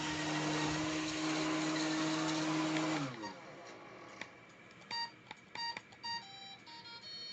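Roomba Discovery SE robot vacuum's motors running with a steady hum, which winds down with a falling pitch about three seconds in. Then the robot plays a quick series of short electronic beeps at different pitches, like a little tune.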